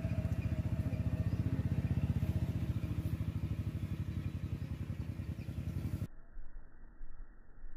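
A small engine running steadily with rapid, even pulses, cutting off abruptly about six seconds in.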